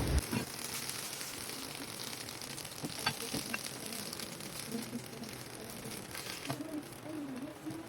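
Okra and beaten egg frying in oil in a pan, a steady sizzle, with a few light clicks about three seconds in.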